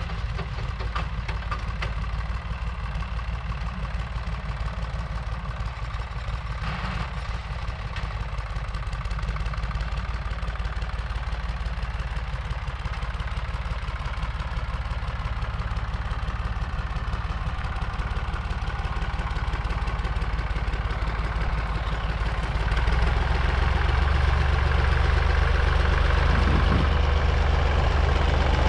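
Valmet 359D tractor's diesel engine running steadily as it pulls a Juko seed drill across the field, growing louder as it comes closer, most of all near the end.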